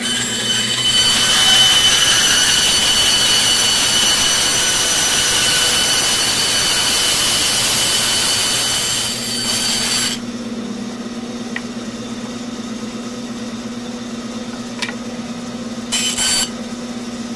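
Bandsaw cutting through a wooden block for about ten seconds, a loud hiss with a high whine, which stops suddenly as the piece is cut free. The saw then runs on unloaded with a steady hum, with a brief second cut near the end.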